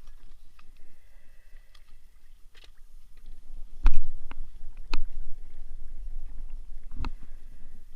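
A few hard knocks and thumps over a low rumble: the loudest comes about four seconds in, with more about five seconds in and a heavy one near seven seconds.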